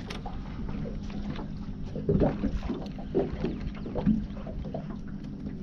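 Water lapping and slapping against the side of a small fishing boat, with a few louder knocks about two and four seconds in, over a steady low hum.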